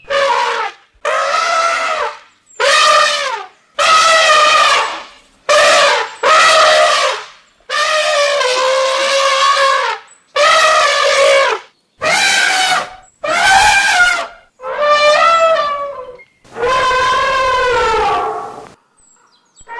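Elephants trumpeting: about a dozen loud calls in quick succession, each lasting up to a couple of seconds with short gaps between them. The longest call comes near the end.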